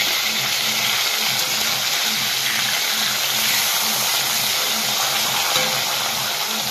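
Rohu fish pieces frying in hot oil in a karai, a steady sizzle, with a faint low pulsing hum underneath.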